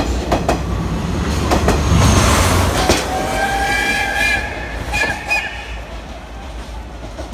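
Steam-hauled passenger coaches rolling past close by, wheels clicking over the rail joints, then the train pulling away and fading, with high ringing tones for a couple of seconds as it goes.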